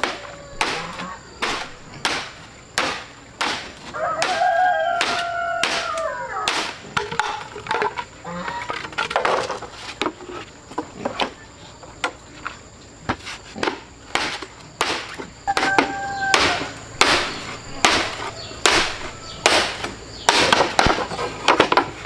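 Bamboo being chopped by hand: a run of sharp, uneven blows, about one or two a second. A chicken calls now and then between them.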